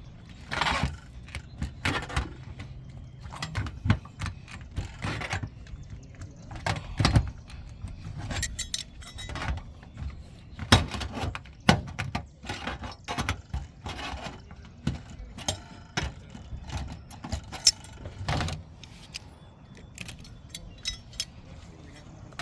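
Hand seamer tongs closing the standing seam of copper roof panels: irregular sharp metallic clicks and knocks from the tool and the sheet copper, one to three a second.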